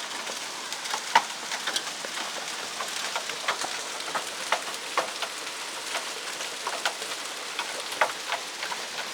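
Hailstones pelting down in a heavy storm: a steady hiss of falling hail and rain, broken by frequent irregular sharp ticks as stones strike hard surfaces.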